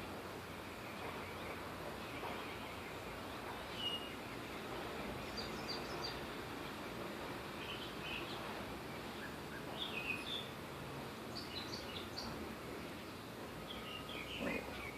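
Birds chirping faintly now and then over steady outdoor background noise.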